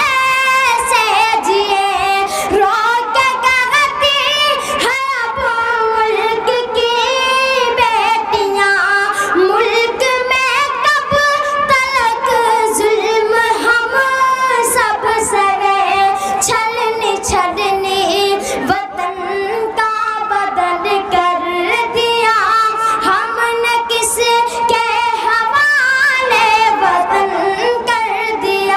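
A boy singing a poem unaccompanied into a microphone, a high voice with long held, wavering notes.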